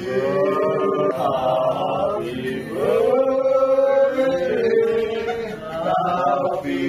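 Several people singing together in unison, with long held notes.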